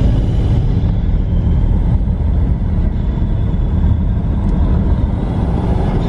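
BMW 335i's N54 twin-turbo inline-six running rough while driving, heard from inside the cabin as a steady low rumble mixed with road noise. It is misfiring: the ECU has shut off one cylinder's fuel injector to protect the engine.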